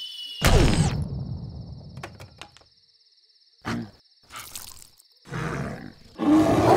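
Cartoon sound effect of a bear roaring: a sudden loud blast that falls steeply in pitch and trails off into a low rumble over about two seconds. A few short, quieter sounds follow.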